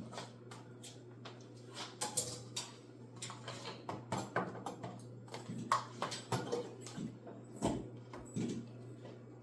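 A utensil knocking and scraping against a mixing bowl in irregular taps and clinks, as cream cheese is broken up and stirred into pumpkin filling by hand.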